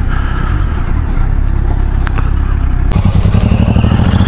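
Kawasaki Versys 1000's inline-four engine running at low revs under a steady rush of wind. About three seconds in the engine note comes through stronger and more pulsing.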